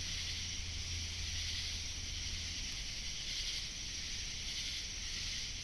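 Steady chorus of night insects such as crickets, an even high hiss with a low hum underneath.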